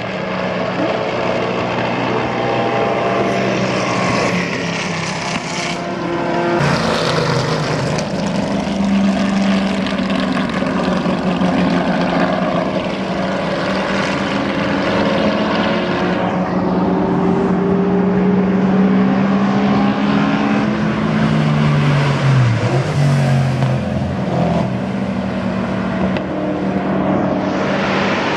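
Big-block V8 engines of CanAm sports racing cars, several cars running through the Eau Rouge dip and up the hill in turn, each engine note rising and falling with throttle and gearchanges. The cars are driven short of flat out on a still-damp track.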